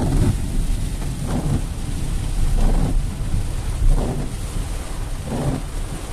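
Heavy rain beating on a car's roof and windshield, heard from inside the cabin, with the windshield wipers on high sweeping about every second and a half.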